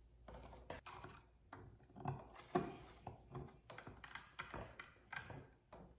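Faint, irregular mechanical clicks and knocks from hand work on the tracked robot's wheel hub.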